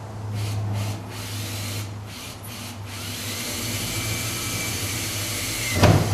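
Power drill boring a hole through metal: three short bursts, then about three seconds of steady drilling. It stops with a loud knock near the end.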